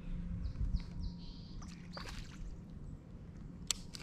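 Small birds chirping briefly over a quiet creek, then a single sharp splash near the end as a small hooked largemouth bass jumps clear of the water.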